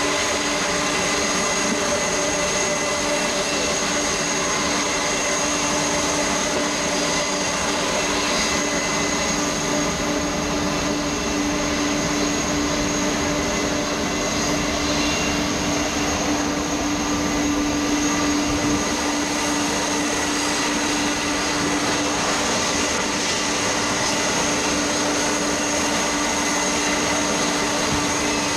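Jet airliner engines running steadily at low power: an even rush of noise with a steady whine over it, holding level without rising or falling.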